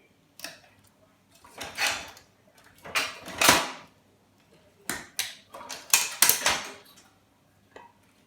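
Scattered knocks, scrapes and clicks of an old Dell monitor's parts being handled and pulled apart. The loudest is a scraping rush about three seconds in, followed by a cluster of sharp clicks around six seconds.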